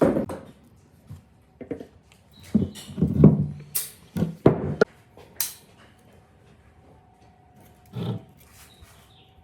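A series of irregular knocks and scrapes, clustered in the first five or six seconds, then one more knock near the end.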